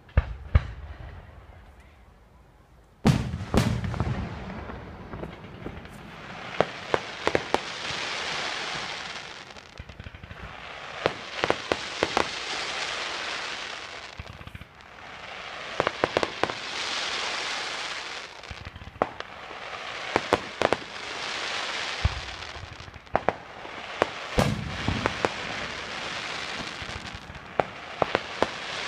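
Fireworks display: sharp bangs of shells bursting, the heaviest about three seconds in and again near the end. Between them come several long, swelling crackling hisses, each a few seconds long and peppered with quick pops.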